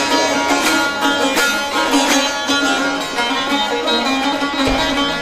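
Two Azerbaijani saz, long-necked lutes, playing a rhythmic instrumental passage of quick plucked and strummed notes.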